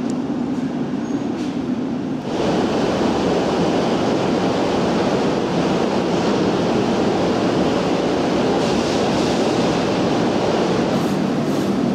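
Steady rushing noise of a London Underground S stock train at a platform. It starts suddenly about two seconds in, over a lower hum.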